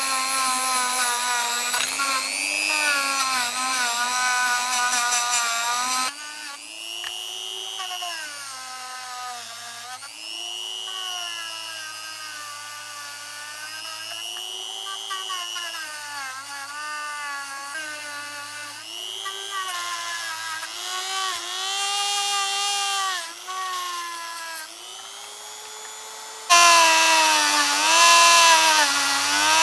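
High-speed rotary tool with a brush attachment whining as it polishes a small die-cast metal car body. The motor's pitch sags and recovers as the brush is pressed against the metal, with a louder scrubbing hiss in the first six seconds and again near the end.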